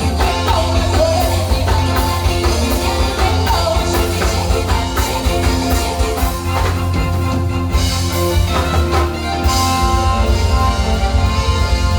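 Loud music over a sound system, with heavy bass, a steady beat and some singing.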